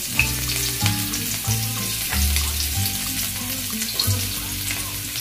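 Minced garlic sizzling and crackling in hot cooking oil in an aluminium wok, a steady frying hiss with fine pops throughout.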